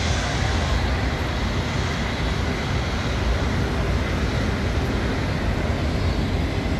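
Jet airliner engine noise across the airfield: a steady rumble with a faint high whine above it.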